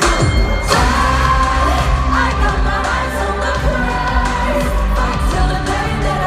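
Pop song with a sung lead vocal over a heavy, sustained bass line.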